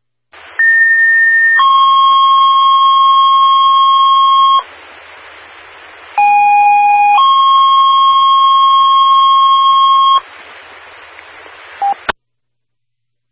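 Fire dispatch two-tone sequential paging tones over a scanner radio: a one-second tone followed by a steady three-second lower tone, sent twice with a different first tone each time, with a second or so of radio hiss between. This is a dispatcher toning out a station's pagers. It ends with a short beep and a squelch click.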